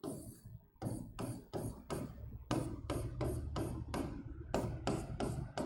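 Short, quick strokes of a marker writing or drawing on a board, about three to four strokes a second, with a brief pause after the first stroke and another around two seconds in.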